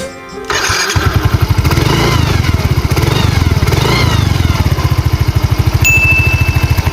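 Motorbike engine running with a rapid, steady exhaust pulse, while a thin whistling tone from a homemade zinc-sheet 'turbo' whistle rises and falls a few times. A steady high beep sounds for about a second near the end.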